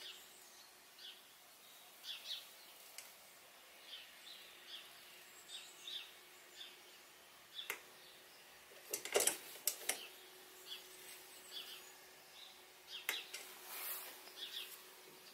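Faint bird chirps in the background. Over them come a few sharp metallic clicks, a cluster about nine to ten seconds in and another near thirteen seconds, as the mini mill's X-axis handwheel is adjusted.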